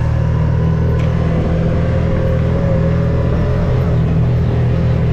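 Off-road vehicle engine running steadily while driving, a constant low hum.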